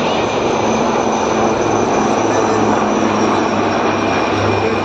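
Aircraft flying overhead: a loud, steady rush of engine noise with a faint high whine running through it.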